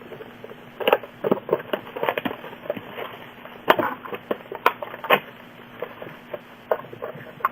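Sealed trading-card box being opened by hand: packaging torn, with a run of irregular sharp cracks, crinkles and rustles, the loudest cracks a little past the middle.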